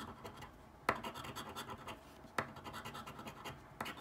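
A coin scraping the silver coating off a paper lottery scratch-off ticket in quick, repeated strokes, with three sharper scrapes: about a second in, near the middle and near the end.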